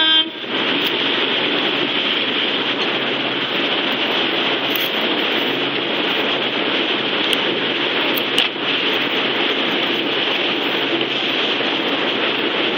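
Refrigeration fans of a walk-in florist's cooler blowing: a steady rushing hiss with a faint low hum underneath. It comes on suddenly right at the start and holds level throughout.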